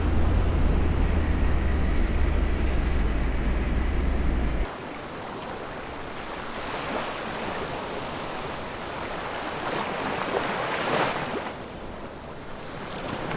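Steady rushing noise of wind, buffeting the microphone with a deep rumble for the first four and a half seconds, then a softer wash that swells twice.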